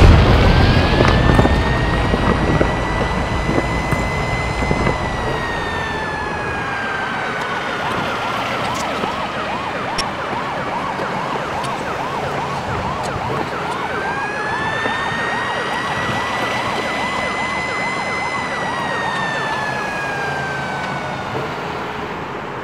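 Emergency siren wailing, rising slowly in pitch and then falling away, twice over. It starts over the fading rumble of the crash explosion.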